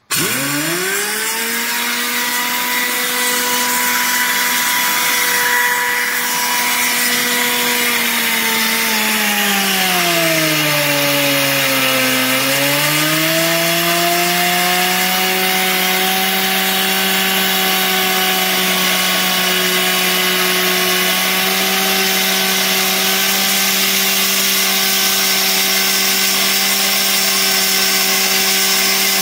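Air-powered belt sander running with a steady whine and a hiss, its abrasive belt grinding against a turning steel train axle journal to polish it. The whine starts suddenly, sags in pitch for a few seconds about ten seconds in, then settles steady a little lower.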